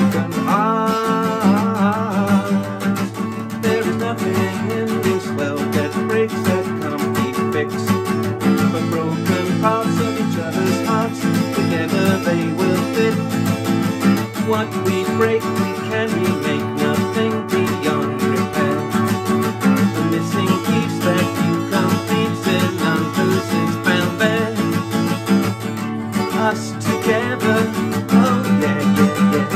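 A song on acoustic guitar, strummed throughout, with a man singing at the start and again near the end.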